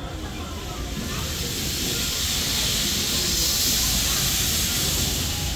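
Steam locomotive 8620-class No. 8630 venting steam with a loud hiss. The hiss builds over the first couple of seconds and stops near the end.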